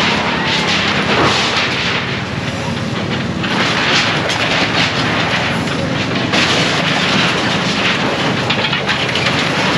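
Demolition noise: dense, irregular clattering and crashing of breaking debris, over the steady low hum of a running engine.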